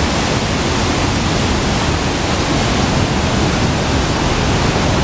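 Loud, steady rushing of white water: the Cares river running fast through a narrow rock gorge, with water pouring through a row of open gates in a concrete channel beside it.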